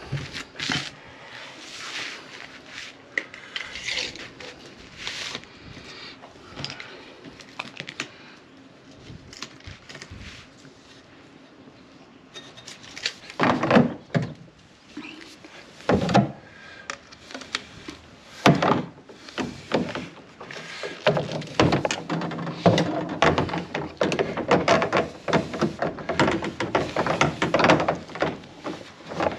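Irregular plastic knocks, clacks and rubbing from white PVC pipe and tee fittings being handled and pushed together, busier in the last third.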